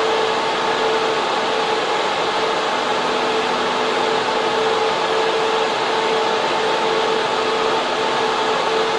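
Data center server room: server cooling fans and air-cooling units running steadily, a loud even rush of air with a constant whine held underneath.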